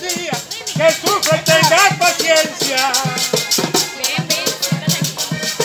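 Live vallenato music: a button accordion playing the melody over the steady beat of a caja drum and the fast, even scraping of a guacharaca.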